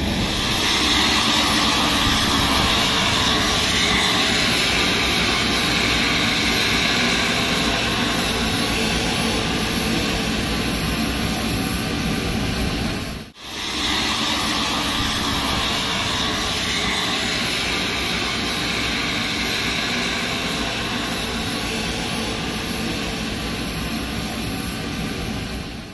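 Steady jet aircraft noise, a constant rush with a whine in it, cutting out for a moment about halfway through.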